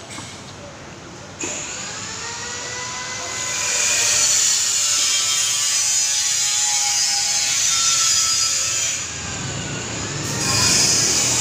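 Loud motor running with a whine whose pitch rises and falls, switching on abruptly about a second and a half in and dipping briefly near the end.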